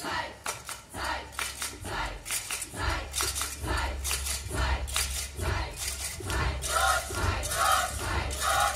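A large choir performing a rhythmic piece: many sharp claps and percussive clicks over a low thumping beat, joined near the end by short group shouts chanted in a steady rhythm.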